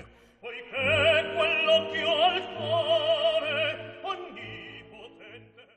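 Operatic singing: a voice with a wide vibrato sung over held musical accompaniment, coming in about half a second in and fading out near the end.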